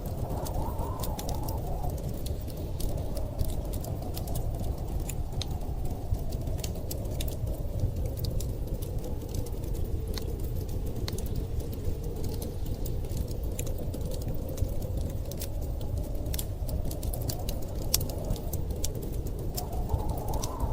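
Wood fire crackling with frequent sharp pops over a steady low rush of storm wind. The wind swells briefly near the start and again near the end.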